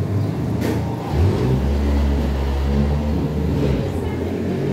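A motor vehicle's engine running as a low, steady rumble that swells about a second in and eases off near the end.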